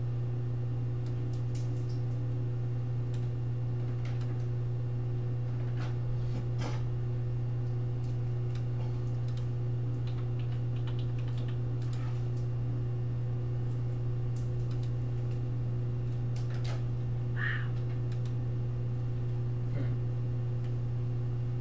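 Scattered, irregular key clicks of someone typing on a computer keyboard while searching for a link, over a steady low hum.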